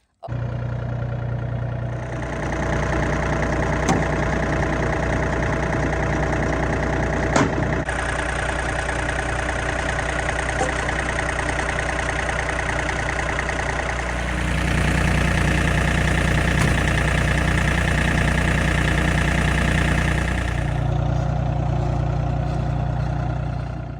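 John Deere tractor engine running steadily under load. It revs up and gets louder about two-thirds of the way through, then drops back near the end.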